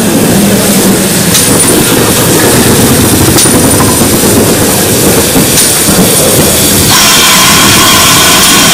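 GWR 2884-class 2-8-0 steam locomotive 3850 moving slowly at close range, its wheels rumbling with a sharp click about every two seconds. About seven seconds in, a steady high hiss of steam starts.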